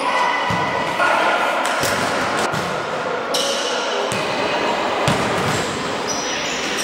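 Indoor volleyball rally: the ball is struck several times, with players' voices and footfalls, all echoing in a large sports hall.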